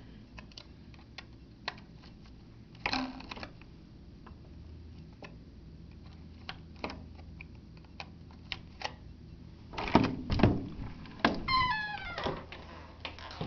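Hotel room door being unlocked and opened: light clicks and a brief rattle at the lock, then a few loud knocks of the latch and handle about ten seconds in. A short creak falling in pitch follows as the door swings open.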